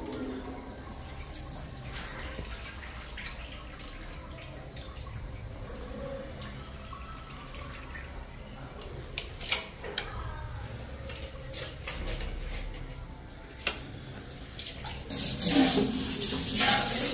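Wet squelching and dripping as raw mutton pieces are squeezed and rinsed by hand over a steel bowl, with scattered small clicks and a few sharper knocks. A louder rush of noise comes near the end.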